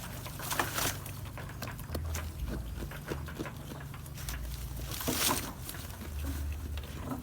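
A goat chewing crunchy food: irregular crisp crunching and crackling, with louder crunches about half a second in and about five seconds in.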